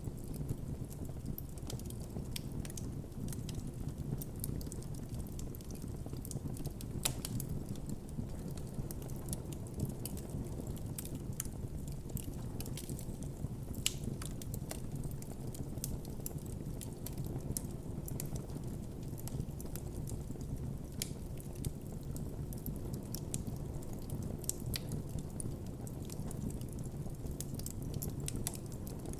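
Campfire burning steadily with a constant low rumble of flames and frequent irregular crackles and sharp pops from the burning wood.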